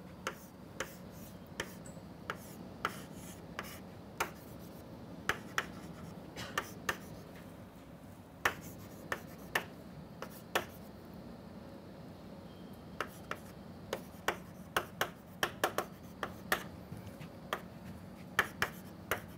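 Chalk on a chalkboard as a diagram is drawn: irregular sharp taps and short scrapes of the chalk, coming more thickly in the last few seconds.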